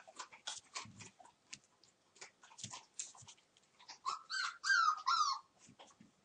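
One-month-old Entlebucher puppies at play: light scuffling and scattered clicks, then, about four seconds in, a run of three or four high whining yelps, each falling in pitch.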